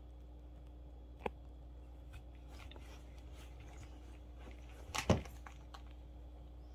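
A dog chewing and mouthing a pair of plastic over-ear headphones: faint clicks and scrapes of teeth on plastic, a sharp knock about a second in, and a louder double knock about five seconds in as the headphones are jostled.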